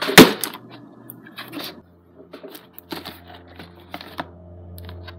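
A cardboard toy box handled and set down on a plastic baseplate: one loud knock just after the start, then scattered light clicks and rustles.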